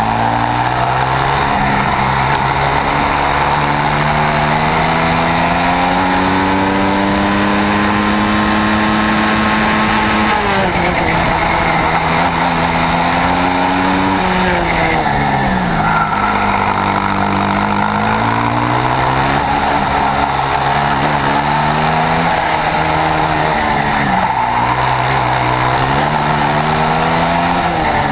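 Swissauto 250 two-stroke twin-cylinder kart engine at racing speed, heard onboard. Its note climbs in long pulls and falls sharply several times as the kart shifts and slows for corners.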